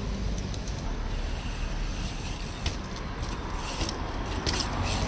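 Steady rumble of road traffic and wind on the microphone, with a few sharp knocks in the second half as a mountain bike's wheels drop down a stone stair set.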